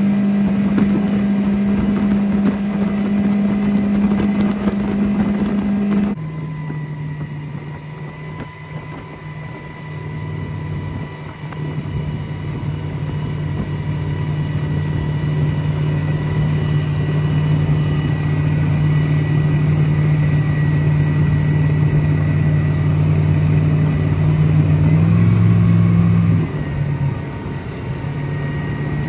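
Mercury 115 hp Pro XS four-stroke outboard running steadily at speed. About six seconds in the sound cuts abruptly to a lower, steadier engine note with a faint whine above it; near the end the note rises briefly, then drops back.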